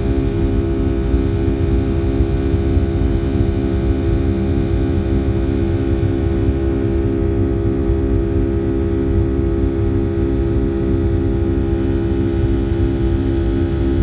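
Cabin noise of a Boeing 757-300 climbing after takeoff: the turbofan engines' steady drone and low rumble, with a hum that throbs regularly about three times a second.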